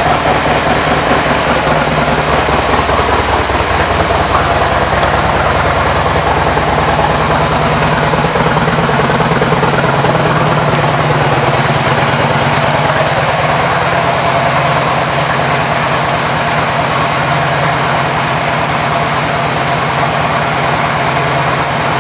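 2005 Harley-Davidson Ultra Classic's Twin Cam 88 V-twin idling steadily through an aftermarket SuperTrapp exhaust.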